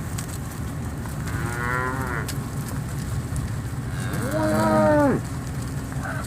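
Cattle mooing twice on a cattle drive: a shorter moo a little over a second in, then a louder, longer one near the end, over a steady low hum.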